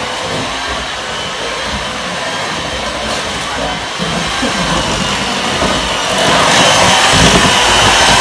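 Electric hand mixer running steadily, its beaters whirring in a steel mixing bowl. It gets louder about six seconds in.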